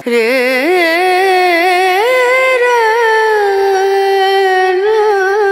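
Background music: a solo voice singing long, drawn-out notes with a wavering vibrato, gliding up to a higher note about two seconds in and then easing down and holding.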